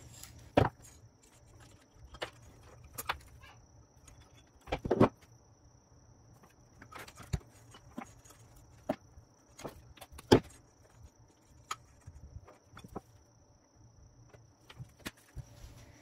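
Scattered light clicks and knocks of hand tools and wire being handled on a workbench, the loudest about half a second, five and ten seconds in. A faint steady high-pitched whine runs underneath.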